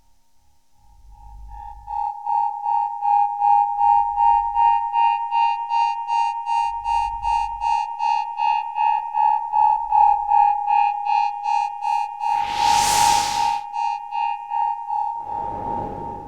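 Electronic synthesizer music: a high synth tone pulses in a quick steady rhythm over low bass swells every few seconds, fading in during the first two seconds. A loud whooshing noise sweep comes about twelve seconds in, and a shorter one near the end.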